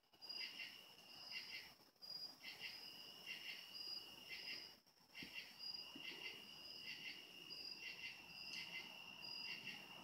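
Faint chorus of night insects such as crickets, chirping in short trilled pulses at two high pitches. The pulses repeat evenly, roughly every two-thirds of a second.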